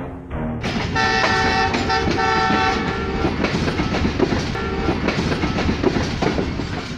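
A passing Pakistan Railways train: steel wheels clattering over the rail joints, with the diesel locomotive's horn sounding a chord in two blasts about a second in, and fainter calls later.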